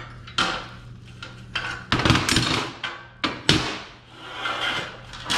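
Steel knocking and scraping as a C-clamp is loosened and set down on a steel plate and a freshly plasma-cut steel strip is picked up: several sharp metallic knocks with ringing tails, the loudest about two and three and a half seconds in, over a low steady hum.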